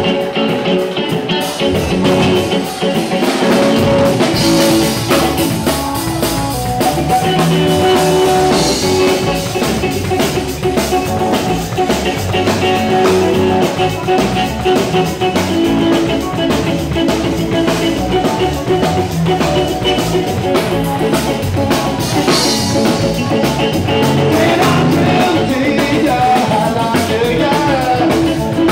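Loud live band music with a steady drum beat and a singing voice.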